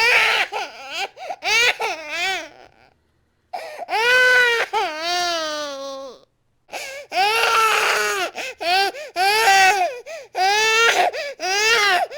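Infant crying hard in repeated loud wails, each cry rising and falling in pitch, broken by short gasps for breath.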